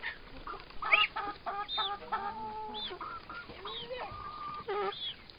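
Chickens clucking and calling, many short overlapping calls, with one longer held note about four seconds in.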